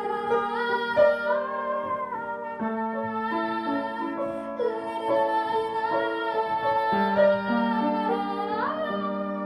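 Piano and cello playing a slow piece: long held low notes that change every few seconds, with a melody above that slides between notes.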